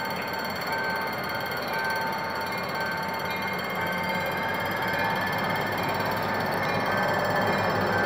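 Level-crossing warning signal ringing in a steady repeating on-off pattern, while the diesel engine of a GM GT22CW-2 locomotive grows louder from about halfway through as it approaches the crossing.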